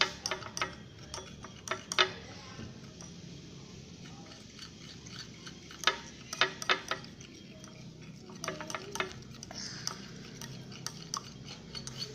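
A stirring utensil tapping and scraping against a small bowl in irregular clusters of clicks, as glue and activator solution are stirred hard and begin to thicken into slime.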